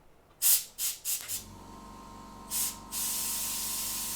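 Air blown onto a circuit board to clear out a piece of dirt: a few short sharp puffs, then a continuous hiss of air from about three seconds in. Under it, a steady machine hum starts partway through.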